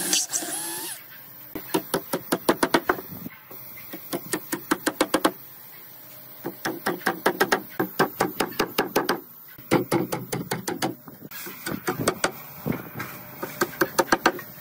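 Wooden mallet driving wooden dowels into drilled holes in a wooden bed frame: quick runs of sharp knocks, several a second, with short pauses between runs.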